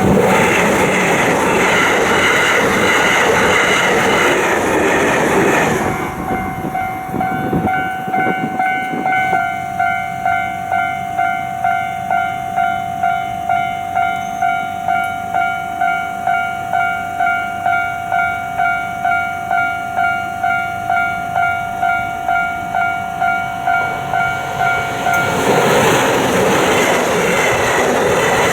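A train passes over a level crossing for the first few seconds while the crossing's electronic warning bell rings. Once the train has gone, the bell is heard on its own, about three dings every two seconds. Near the end a second train arrives and its running noise covers the bell again.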